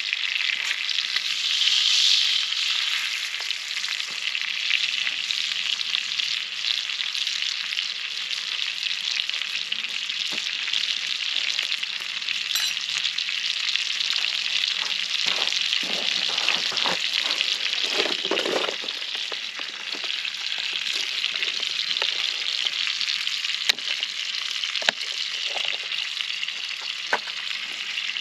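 Food frying in a pan, a steady sizzle. It is joined by a short spell of lower scraping or shuffling noises a little past halfway, and a few sharp clicks near the end.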